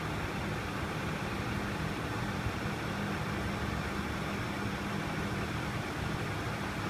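Lagun FBF 2600 CNC milling machine running with a steady low hum and an even mechanical hiss.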